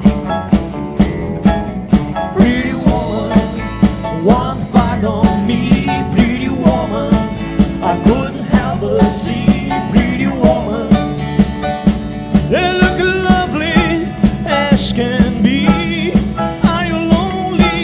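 Live rock and roll band playing an instrumental passage: a lead line with bending, wavering notes over a steady fast drum beat.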